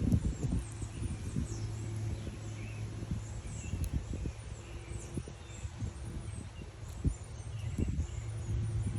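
Small birds chirping, many short high calls in quick succession, over a low hum that comes and goes.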